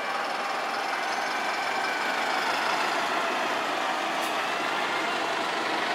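Fire engines and other heavy emergency trucks running and idling close by, a steady engine sound with street traffic noise.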